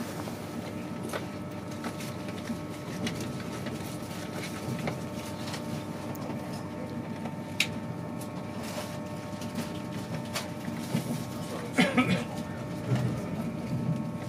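Steady running noise inside an InterCity 225 passenger coach under way: a low rumble with a faint steady hum and occasional sharp clicks and knocks.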